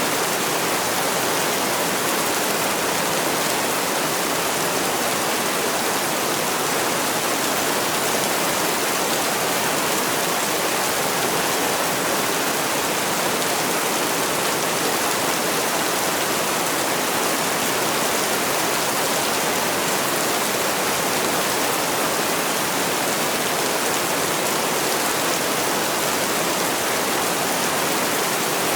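Heavy rain falling steadily, a dense, even hiss with no separate drops or changes.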